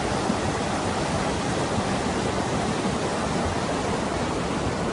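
Steady rushing of a mudflow, muddy water and debris streaming over the ground.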